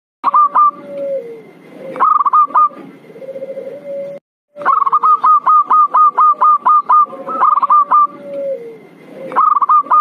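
Zebra doves (perkutut) cooing as a lure call: short runs of quick, hooked staccato notes, with a long run of about a dozen notes in the middle and a lower gliding coo between the runs. The sound cuts out for a moment about four seconds in.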